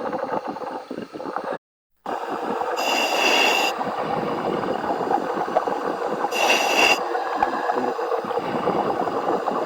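Underwater diver breathing through a commercial diving helmet, heard over the helmet's communications line: a steady bubbling rush of exhaust with a whistling hiss of inhaled air through the demand regulator about every three and a half seconds. The line cuts out briefly near the start.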